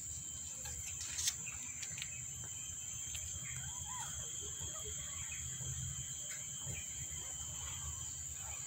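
Steady high-pitched insect drone over a low background hum, with a few faint short chirps near the middle.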